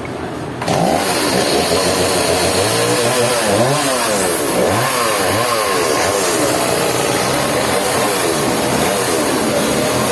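An engine running and revving up and down over and over, its pitch rising and falling every second or so. It starts suddenly just under a second in.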